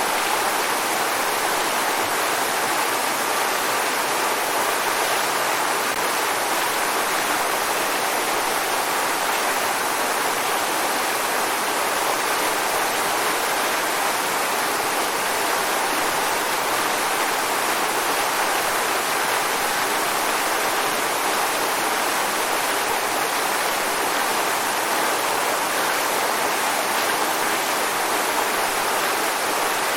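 Waterfall: a steady, unbroken rush of falling water that stays even throughout, bright and hissy with little deep rumble.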